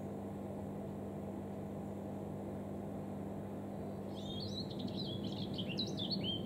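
A small songbird sings one short warbling phrase from about four seconds in, over a steady low hum.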